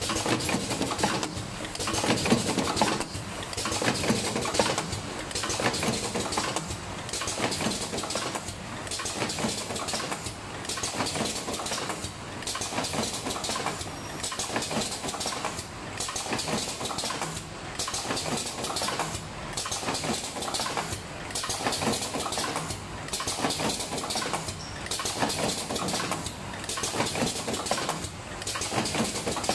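Automatic rotary cartoning machine running, with a steady mechanical clatter. The clatter dips briefly about every two seconds as the indexing and pick-and-place cycle repeats.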